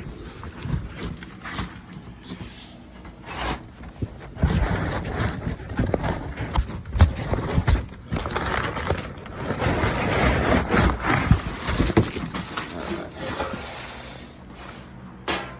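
A replacement sheet-metal floor pan being unpacked and handled: irregular scraping and rustling of packaging and metal, with scattered sharp knocks and a busier stretch of scraping in the middle.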